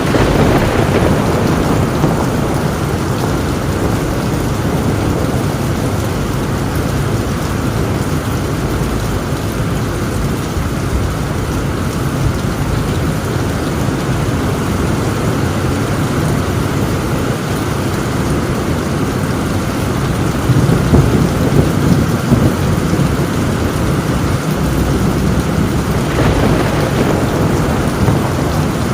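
Heavy rain pouring steadily on a tin roof, with rolling thunder that swells loudest about twenty seconds in.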